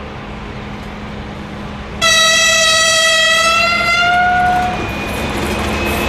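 DB class 232 diesel locomotive working hard under load as it pulls a freight train, its engine rumbling. About two seconds in it sounds one long horn blast of nearly three seconds, a single note that rises slightly in pitch at its end. After the horn the engine grows louder as the locomotive draws near, with a thin high whine near the end.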